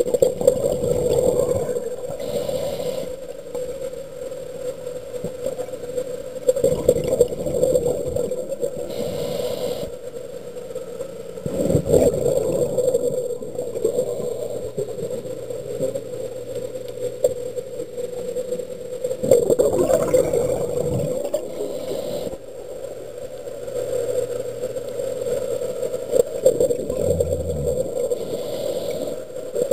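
Muffled underwater sound heard through a camera housing. A diver's breathing on a closed-circuit rebreather swells about every six to seven seconds over a steady hum.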